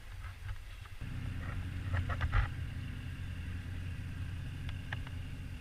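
Boat engine running with a low steady drone that starts abruptly about a second in. A few sharp clicks or knocks come at about two seconds.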